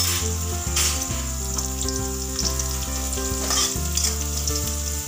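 Cumin seeds, green chilli and ginger sizzling and crackling in hot oil in a kadhai while being stirred with a slotted spoon. Underneath runs a low hum that changes pitch in steps every second or so.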